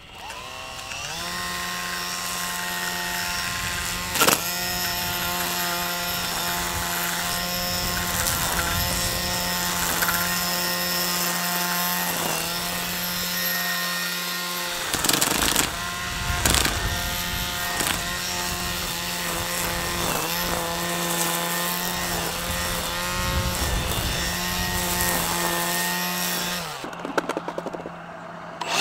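Milwaukee M18 cordless string trimmer running at a steady, pitched whine while cutting grass along a patio edge, with a few sharp clicks along the way. Near the end it winds down.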